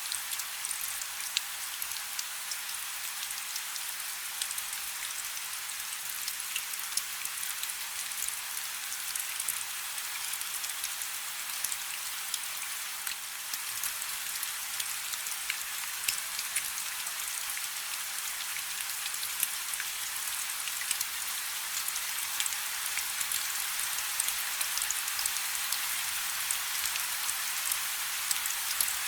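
Steady rain falling on a surface: an even hiss dotted with many sharp ticks of single drops, with no thunder. It grows slightly louder over the last several seconds.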